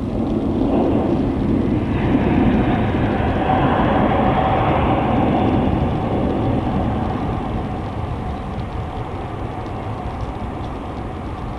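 Four-engine Airbus A380 jet engines during the landing rollout: a broad, steady roar that grows louder about a second in, holds for a few seconds, then fades as the airliner slows down the runway.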